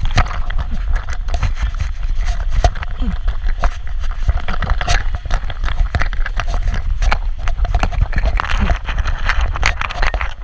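Back-mounted GoPro on a trotting Schnoodle: the camera and harness jostle with each stride, giving a run of knocks and clicks from the metal leash clip and tag over a heavy low rumble of fur and motion rubbing against the housing.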